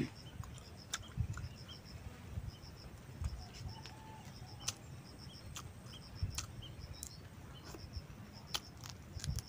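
A person eating land crab: soft chewing thumps and a few sharp clicks from the shell being bitten and handled. Behind it, short high chirps repeat steadily in twos and threes.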